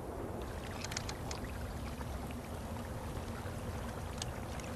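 Meltwater trickling through a crack in thawing snow and ice: a soft, even running-water noise with a few faint ticks.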